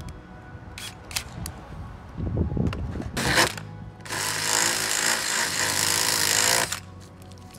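DeWalt cordless drill boring a hole through the van's sheet-metal roof for the cable-entry grommet: a short burst of drilling about three seconds in, then a steady run of nearly three seconds that stops abruptly. Background music runs underneath.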